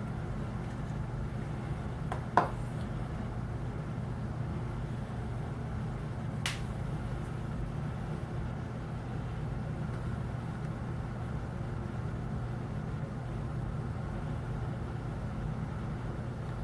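Steady low hum of room background noise, with a sharp handling click about two seconds in and a fainter click about six seconds in.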